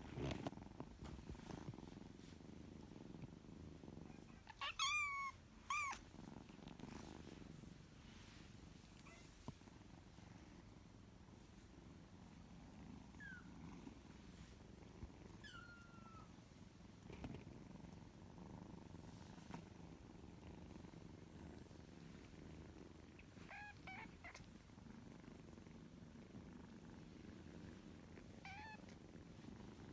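Month-old kittens purring steadily, with short high mews that slide down in pitch: a pair about five seconds in, single ones midway, another pair later and one near the end.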